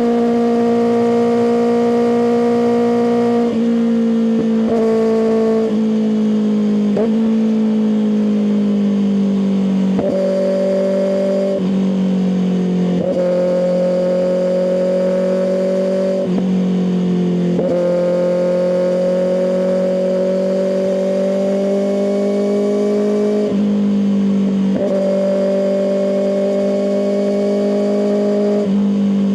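Kawasaki ZX-6R inline-four engine through an M4 aftermarket exhaust, running under way at fairly steady revs. Every few seconds the engine note jumps sharply down or up in pitch, as with gear changes and throttle changes.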